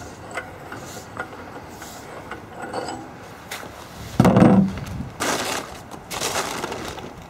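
Handling noise: faint clicks and rustling, then a loud thump about four seconds in and a few shorter noisy bursts, as a person climbs onto a riding mower's seat.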